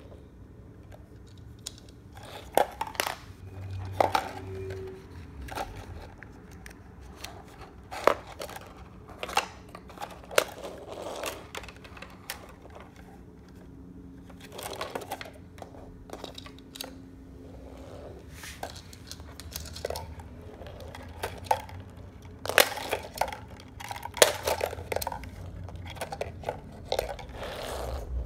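Plastic slinky spring toys being handled and set down on a wooden floor: irregular clicks and clacks of the plastic coils, light rustling, and scattered sharp knocks.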